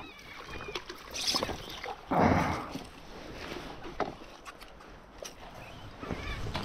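Water lapping and sloshing around an inflatable fishing board while a fish is played on the rod, with a louder burst of water noise about two seconds in. Short high calls of seabirds come faintly at the start and again near the end.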